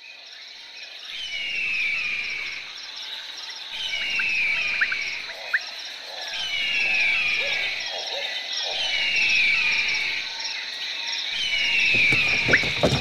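Nature ambience: steady insect buzzing, with a falling bird call repeated about every two and a half seconds and a low rumble that swells and fades with each call. Near the end, clicks and creaks start up.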